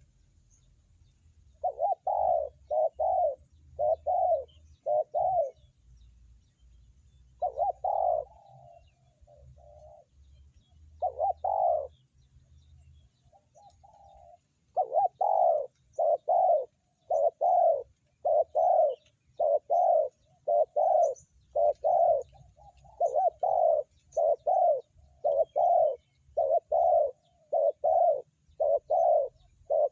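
Spotted dove cooing: low, hollow coo notes in short groups with pauses, then a long, even run of coos about one every two-thirds of a second.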